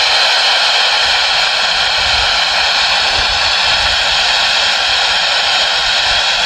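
SB7 spirit box sweeping through radio stations, giving out a loud steady hiss of static.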